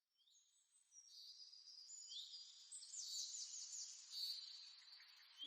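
Forest ambience with birds singing faintly, high whistles and chirps fading in after about a second, including a quick run of about five repeated notes past the middle, over a soft hiss.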